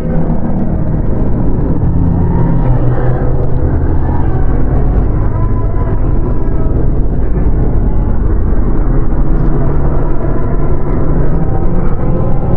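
Dark ambient horror soundscape: a loud, steady low rumble with several held droning tones layered over it that shift every few seconds.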